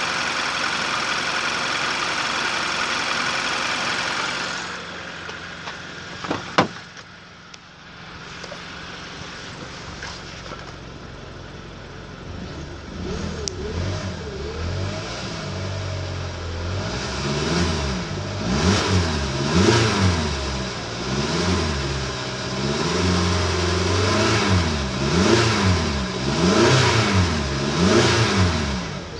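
Hyundai i45's 2.4-litre GDi four-cylinder petrol engine running, first heard under the open bonnet, then from inside the cabin at idle with a single sharp knock early on. In the second half it is revved about ten times in quick succession, the engine note rising and falling each time.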